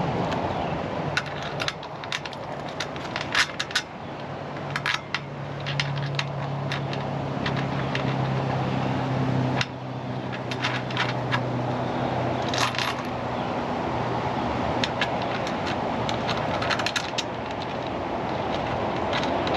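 Metal hardware and rack parts clinking, tapping and scraping while a rack is fitted to a trailer floor, with many sharp clicks. A steady low hum runs through the middle for several seconds.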